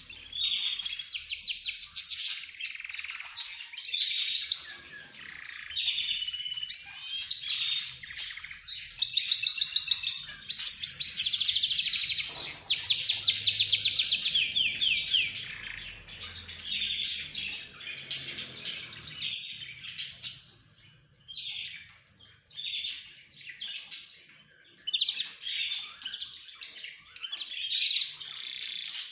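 A flock of small cage birds chirping and chattering over one another, a mix of budgerigars, rosy-faced lovebirds, zebra finches and a canary. Quick overlapping calls and rapid trills run throughout, busiest in the middle and thinning briefly about two-thirds of the way through.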